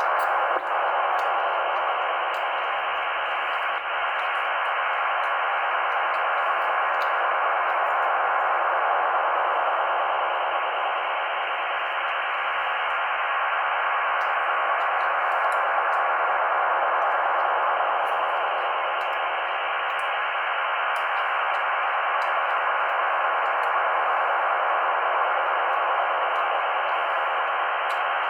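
Loud, steady interference hiss from a CB radio's speaker, filling the band with noise. The uploader wonders whether a new radar is causing it.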